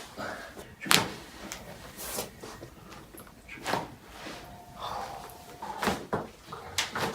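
Sharp knocks and clicks during a chiropractic adjustment, from joints cracking and the body being worked on the treatment table; the loudest comes about a second in, with several smaller ones after.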